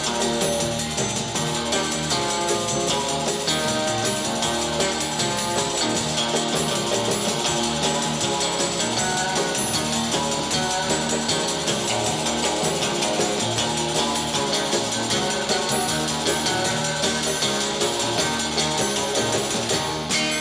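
Upbeat 1960s pop-rock band music with a steady beat and jangling high percussion.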